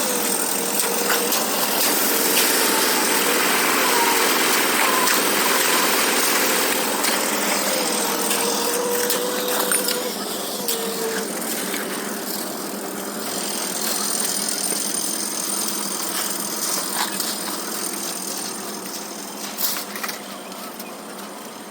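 Construction machinery engine running steadily at a concrete slab pour, a dense mechanical drone that eases somewhat about halfway through.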